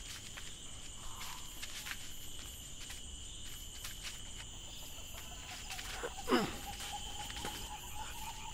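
Night-time crickets chirping steadily in high-pitched bands. About six seconds in, a short sound falls sharply in pitch, followed by a faint steady tone.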